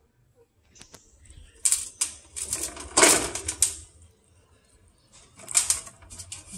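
Cat biting and chewing a whole fried fish. There are irregular bursts of crisp, rapid crunching clicks, loudest about three seconds in, and another burst near the end.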